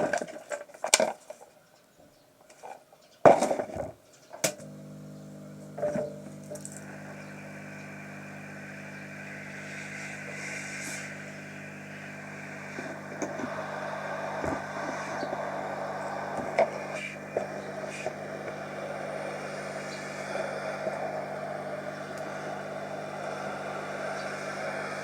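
A few sharp clunks and knocks, then about four seconds in a washing machine's motor starts and runs with a steady hum and a swishing noise that slowly grows.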